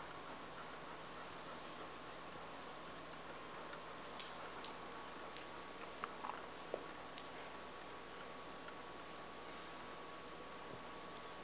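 Golden retriever puppy chewing a plush toy: faint, irregular clicks of teeth and jaws, two or three a second, with a few louder bites.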